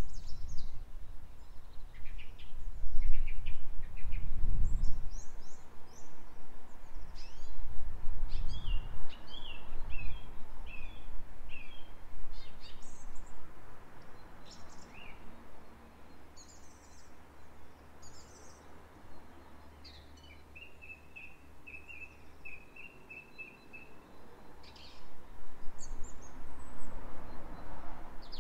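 Garden birds singing and calling, with short chirps throughout and a quick trill of repeated notes past the middle. Gusts of wind rumble on the microphone during the first few seconds and again near the end.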